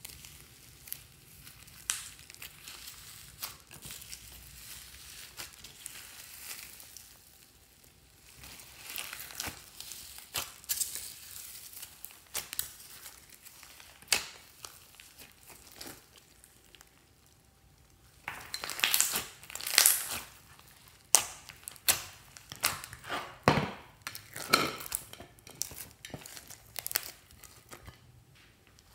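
Hands squeezing and kneading slime packed with foam beads and crumbled chalk: irregular crunching, crackling and squelching, louder and sharper in the second half.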